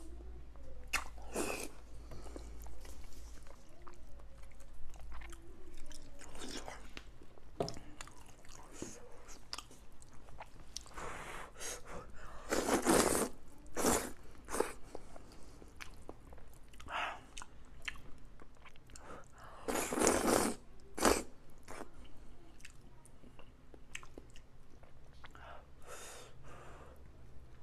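Close-up eating sounds: wet chewing and biting of braised pork belly, and loud slurping of noodles. The longest, loudest slurps come about halfway through and again later.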